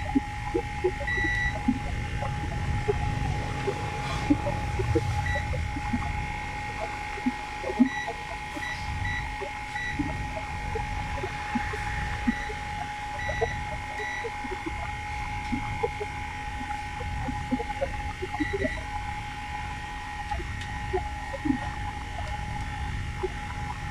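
Multimeter continuity buzzer giving short, irregular beeps as the probes are touched across capacitors on a TV circuit board in a check for shorts. Small clicks of the probes come between the beeps.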